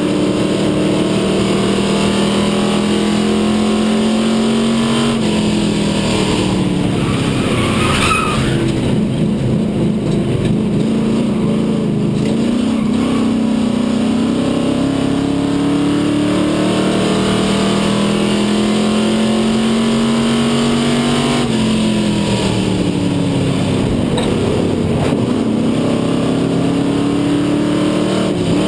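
Stock-car racing engine heard from inside the car's cockpit, revving up along the straights and falling away twice as the driver lifts for the turns.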